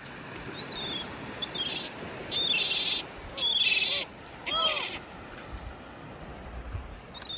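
Gulls calling overhead: a string of about five or six harsh, mewing calls, each under a second long, over steady background noise.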